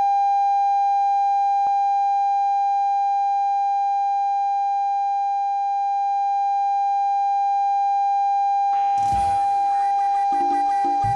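A steady pure electronic tone, like a long held beep, sounds without a break. About nine seconds in, music comes in beneath it.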